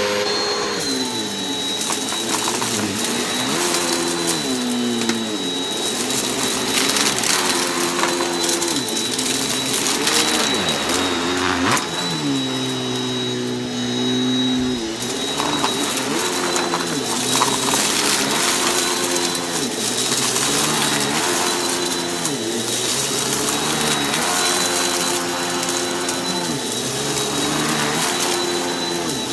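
Upright vacuum cleaner running on a shag rug, with a steady high whine. Its motor note falls and rises every couple of seconds as it is pushed back and forth over the pile.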